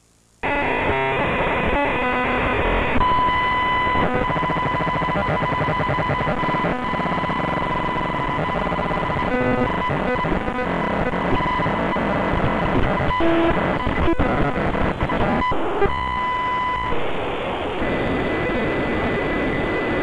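Harsh, loud distorted static noise that cuts in suddenly about half a second in, with a steady high-pitched tone running through it: a glitching-broadcast noise effect. The tone fades out for a while near the end.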